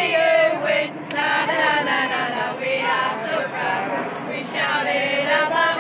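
A crowd of rugby league supporters chanting and singing together, many voices at once.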